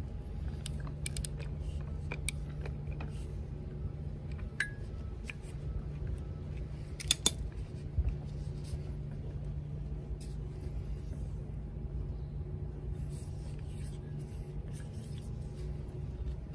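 Small metal tools and parts clicking and clinking as they are handled, a dozen or so scattered knocks with the loudest about seven seconds in, over a steady low hum.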